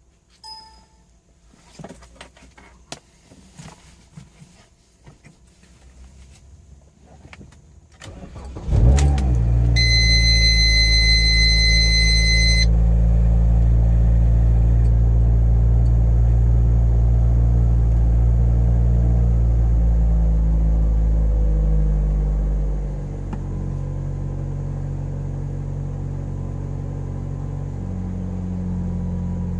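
A 2011 Mazda MX-5 Miata's 2.0-litre four-cylinder engine is cranked and starts from cold after several seconds of small clicks. It then runs at a steady fast cold idle, with a high steady tone over it for a few seconds just after the start. About 23 seconds in, the idle drops to a lower, quieter note. The owner suspects a vacuum leak.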